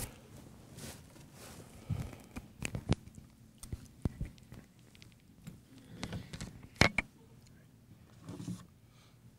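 A book and papers being handled and gathered up at a wooden pulpit: scattered rustles and short knocks, the sharpest about seven seconds in.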